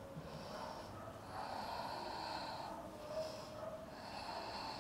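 A woman's audible breathing, a few slow breaths in and out through the nose and mouth while she holds a yoga pose.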